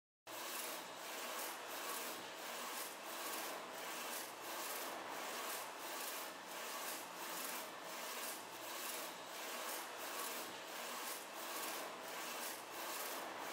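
Flatbed UV LED printer running a varnish print pass: the print-head carriage shuttles back and forth over the bed with a steady swishing hiss that pulses about twice a second.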